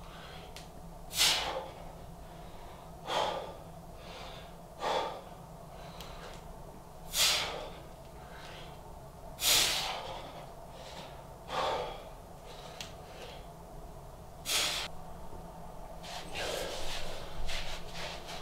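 A man's hard, sharp breaths out, one about every two seconds in time with his press-up reps, then a longer spell of ragged breathing near the end as the set finishes.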